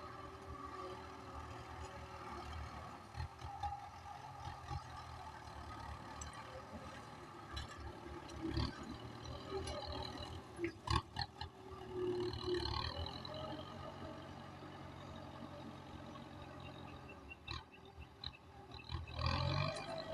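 Kubota M9540 tractor's diesel engine running steadily while ploughing, with a few sharp knocks a little before halfway through.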